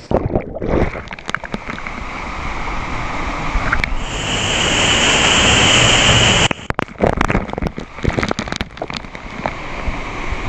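Close-up rush of a waterfall, with many sharp crackles and knocks over it. About four seconds in, the rush grows brighter and louder for a couple of seconds, then drops away suddenly.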